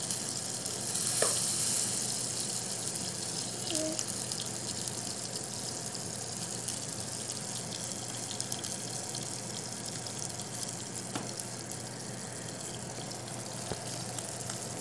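Cherry tomatoes frying in olive oil in a small nonstick pan: a steady sizzle with a few sharp pops as the tomato skins burst.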